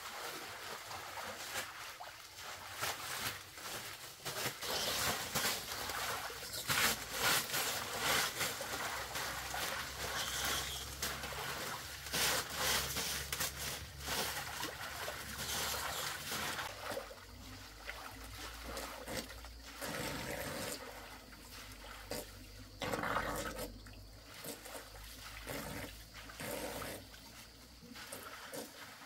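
Water trickling and splashing unevenly, with frequent short irregular splashes.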